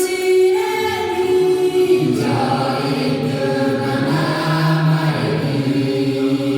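A group of voices singing long, held notes together in a chant-like choir, with a low and a higher line sounding at once.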